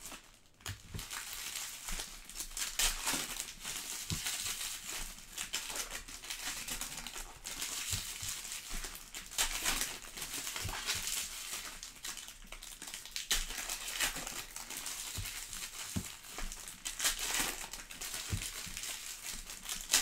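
Foil trading-card pack wrappers crinkling and crumpling in the hands, an irregular run of crackles throughout.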